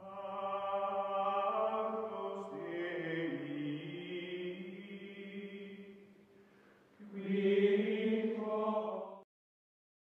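Choir-like music: a long held vocal chord that fades away, then a second, louder chord about seven seconds in that cuts off suddenly.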